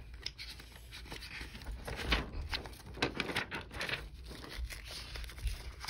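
Paper sketchbook pages rustling and crinkling as they are handled and turned, in short irregular rustles.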